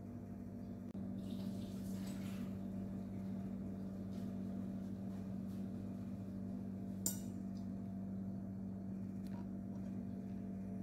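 Steady low hum of a running machine, stepping up slightly about a second in, with a single sharp click about seven seconds in.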